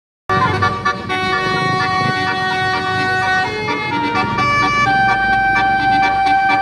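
Indonesian tour bus's Basuri telolet multi-tone air horn playing a melody: held horn notes stepping from one pitch to the next, over a low rumble.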